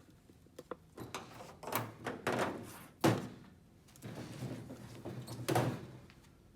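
Handling noises from working on wiring inside an open plasma cutter case: a few sharp clicks and knocks, with some rustling and scraping of wires and parts.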